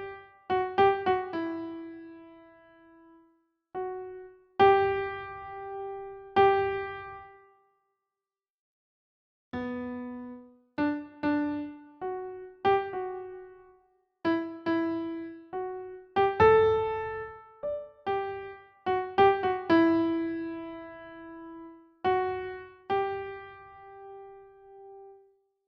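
Slow, gentle solo piano music: sparse single notes and soft chords, each left to ring out and fade, with a silent pause of about a second and a half about a third of the way in.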